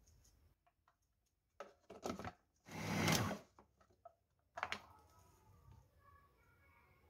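Food processor lid clicked into place, then the motor run in one short burst of under a second, mincing raw chicken with onion and spices; another sharp knock follows about a second later.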